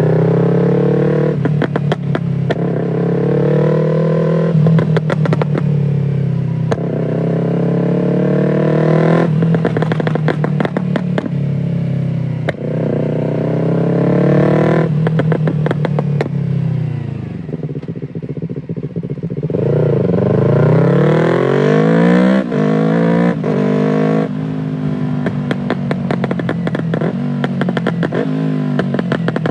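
Yamaha R3's 321 cc parallel-twin engine running hard, its pitch rising and falling in repeated sweeps. It drops lower a little past halfway, then climbs again in a long rising rev.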